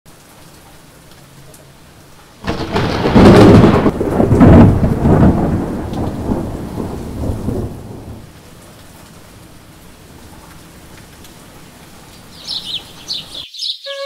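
Steady rain falling. A loud thunderclap breaks about two and a half seconds in and rumbles away over the next five seconds or so. Near the end, small birds chirp briefly.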